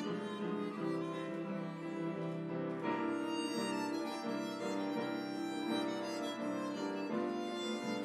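Harmonica playing a sustained, singing melody over piano accompaniment.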